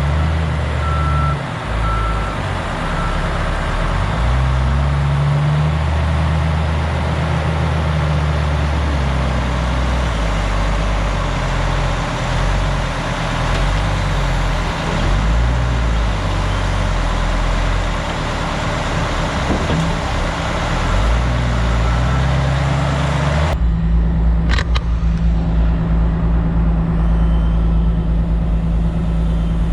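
Komatsu 450 wheel loader's diesel engine revving up and down as it works, loading snow into a dump truck, with a reversing alarm beeping three times near the start. Over two-thirds of the way in, the sound switches abruptly to a steadier low diesel rumble with a single sharp knock.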